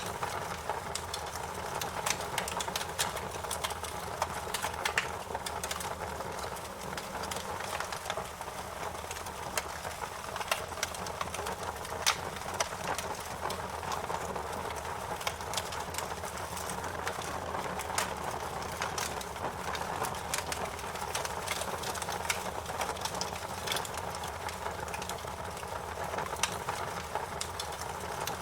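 Campfire crackling: a steady hiss of burning wood with frequent sharp pops and snaps, a few of them louder.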